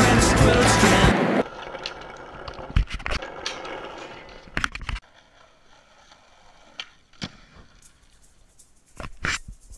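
A music track cuts off about a second and a half in. After it come a skateboard's wheels rolling on asphalt and sharp clacks of the board popping and landing, in two clusters, with a quiet stretch holding only a few single clicks between them.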